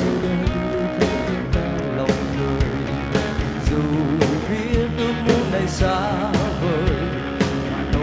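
Vietnamese pop-rock song playing, with a steady drum beat, guitars and a sung vocal melody.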